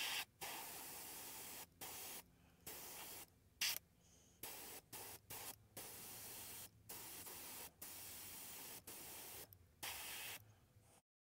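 Gravity-feed airbrush spraying a thin coat of white paint: about a dozen short bursts of air-and-paint hiss as the trigger is pressed and released, with brief pauses between them.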